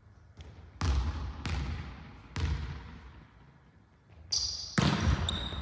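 A volleyball being struck and bouncing: sharp smacks that echo through a large hall, three in the first two and a half seconds and two more close together near the end. A short high squeak comes near the end.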